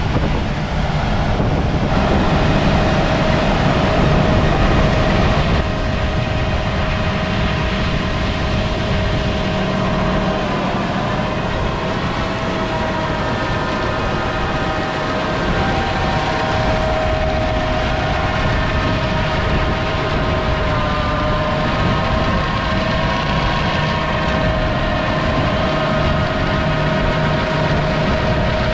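Large diesel harvest machinery running steadily: a continuous engine drone with a whine that wavers slightly in pitch, a little louder for the first few seconds.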